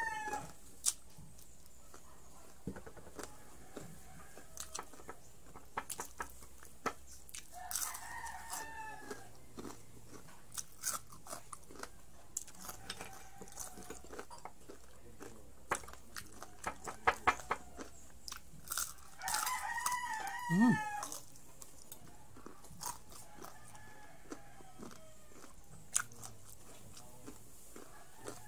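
Crisp crunching bites and chewing of fried pork strips close to the microphone, with a tight run of sharp crunches about seventeen seconds in. A rooster crows in the background about eight seconds in and again around twenty seconds in, with fainter crows between.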